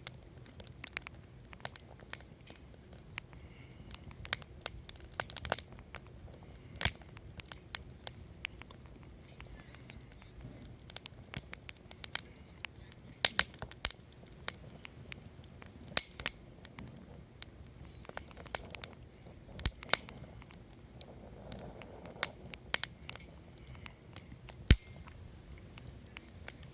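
Wood fire crackling in a fire pan, with irregular sharp pops, a few much louder than the rest, over a low hiss.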